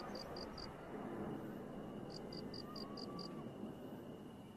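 Low rumble and crackle of a fireworks display fading slowly after a barrage of low bursts, with no sharp bangs. Runs of short, high chirps of one pitch, about five a second, come in groups of five or six.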